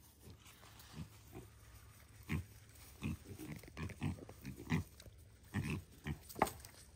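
Pigs grunting: short, quiet grunts at irregular intervals.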